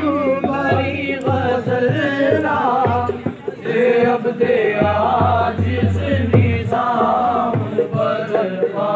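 Qawwali music: voices singing long, wavering melodic lines over a rhythmic drum beat.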